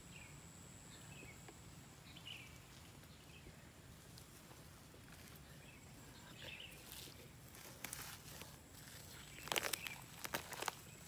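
Dry, stringy rotten log wood being torn apart by hand: crackling and splintering, sparse at first, then a quick run of sharp crackles from about seven seconds in, loudest near the end.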